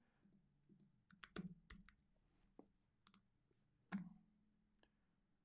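Faint computer keyboard keystrokes and clicks, a scattered handful of short taps with a slightly louder click about four seconds in.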